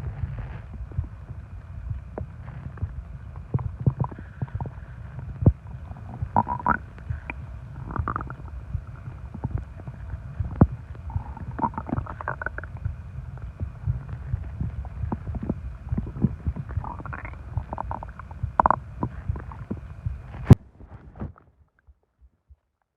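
A human stomach growling after a large meal and a soda. A continuous low rumble runs throughout, with higher gurgling squeaks breaking through every few seconds. It ends in a sharp click about twenty seconds in, after which it goes almost quiet.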